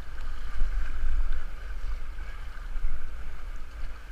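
Fast floodwater rushing and churning around a kayak. A heavy low rumble of wind buffeting the camera microphone rises and falls under it.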